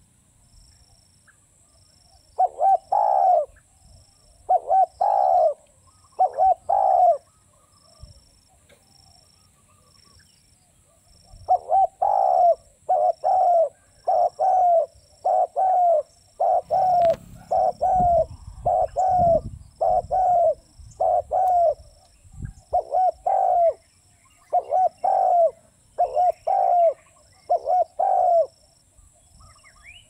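Spotted dove cooing: a few coos, then after a pause of several seconds a long run of evenly spaced coos, about two a second.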